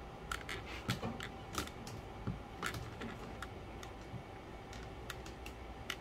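Irregular clicks and light knocks from a camera tripod being raised and adjusted, some coming in quick clusters.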